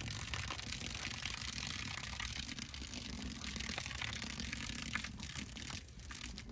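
Garden hose spraying a stream of water: a steady hiss and spatter, with a low rumble underneath.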